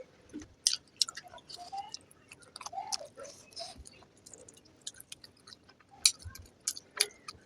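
A person chewing a mouthful of fried rice and egg curry close to the microphone: a run of wet mouth clicks and lip smacks, with the loudest smacks about six and seven seconds in.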